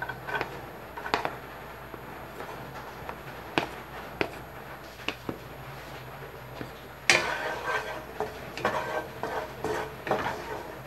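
Light taps and clicks as chopped garlic is pushed off a plate into oil in a wok, then, from about seven seconds in, a wooden spatula scraping and knocking against the wok as the garlic is stirred.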